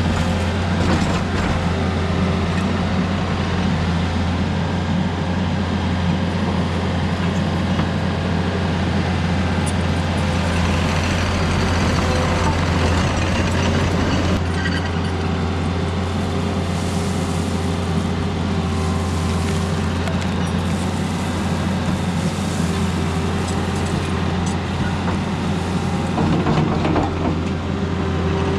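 Diesel engine of an earthmoving machine running steadily, a constant low drone with no change in speed.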